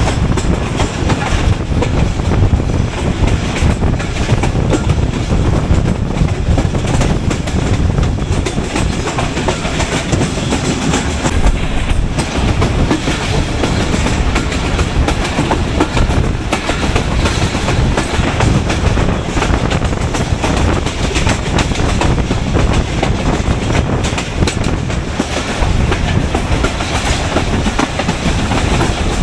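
Passenger train running along the track: a loud, steady rumble with the wheels clattering over the rail joints.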